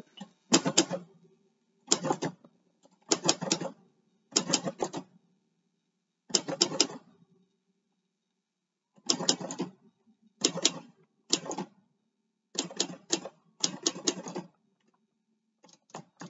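Olympia manual typewriter being typed on: keys striking the platen in short clusters of a few keystrokes, with pauses of a second or two between, like typing word by word.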